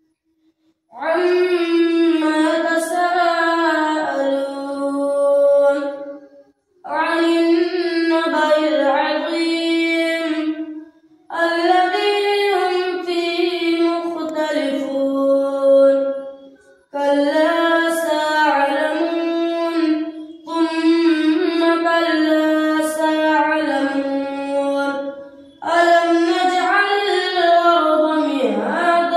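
A boy reciting the Quran in a melodic chanted style (tilawat), in long phrases of about three to five seconds with short breath pauses between them.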